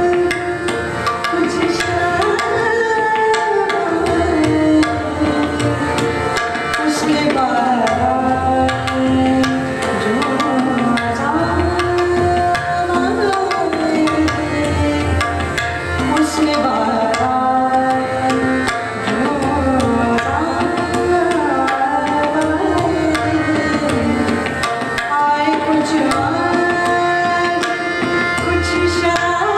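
A woman singing a ghazal, accompanied by harmonium and tabla, with held, gliding melodic lines over steady tabla strokes.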